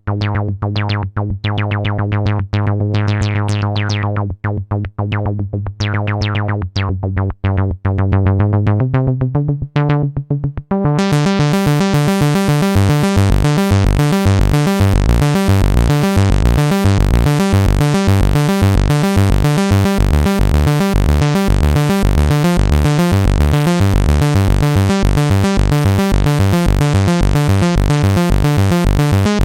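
Modal Cobalt 5S synthesizer playing a sequenced pattern of short, rapidly repeated notes over a deep bass. About eleven seconds in, a brighter, busier layer comes in and the sound fills out to the top.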